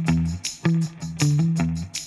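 Music with plucked guitar notes over a bass line, in a steady rhythm of repeated notes; no voice.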